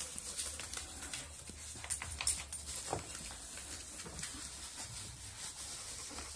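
Spanish Alano puppies moving about, with scattered small clicks and scuffles, panting and a faint whine about halfway through, over a low steady hum.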